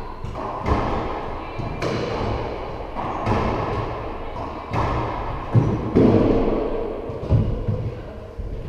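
Racquetball rally: a series of sharp hits as the rubber ball is struck by the racquets and rebounds off the court walls, roughly one a second. Each hit rings on in the echo of the enclosed court.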